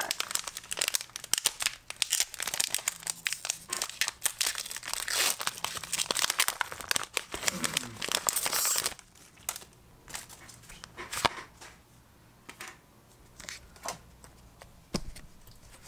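Foil wrapper of a Pokémon trading card booster pack crinkling and tearing open for about the first nine seconds, then sparser light clicks and taps as the cards inside are handled.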